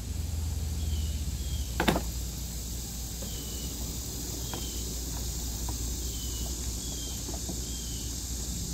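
Plastic trim piece at a Subaru Outback's rear wheel arch being worked loose by hand: one sharp click about two seconds in, then faint small clicks as it is pulled. A short high chirp repeats about every second in the background.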